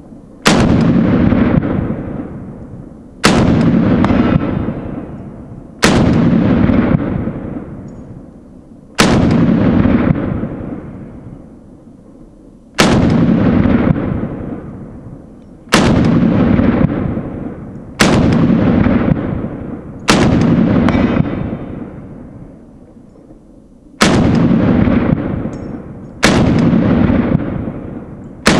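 Ikon Weapons G223 pistol, a Micro Galil-pattern 5.56×45mm pistol with an 8.3-inch barrel, firing single shots. There are about ten shots, two to four seconds apart, each followed by a long rolling echo that fades away.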